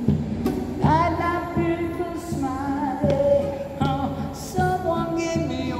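A man singing a melody while strumming a classical guitar, the voice coming in strongly about a second in.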